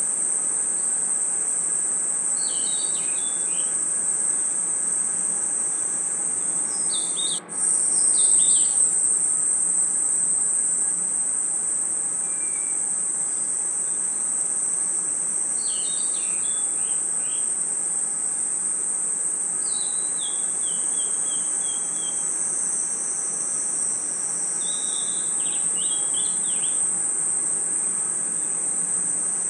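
Night chorus of crickets and other insects: a steady, high-pitched shrill trill, with short groups of chirps every few seconds. The chorus drops out for an instant about seven seconds in.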